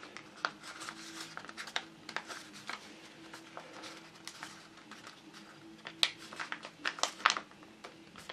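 A folded sheet of printer paper crinkling and crackling under the fingers as it is pinched and pried apart, in a run of short sharp crackles. The loudest crackles come about six seconds in and again around seven seconds in.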